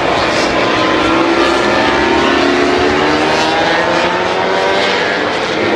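Several Moto3 racing motorcycles, 250 cc single-cylinder four-strokes, revving as they ride out of the pit lane. Their engine notes overlap, each rising and falling in pitch.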